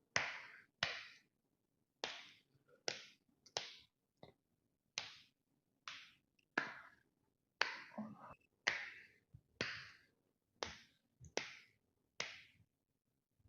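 A run of about fifteen sharp cracks and pops, roughly one a second, each dying away quickly: joints cracking during a chiropractic back and neck adjustment.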